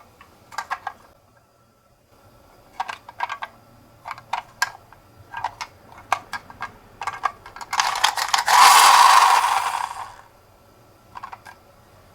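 Toy die-cast ambulance minicar clicking and clattering in several short runs of small knocks, then a louder rolling noise lasting about two seconds, as of the little car running along a hard surface, followed by a few more clicks near the end.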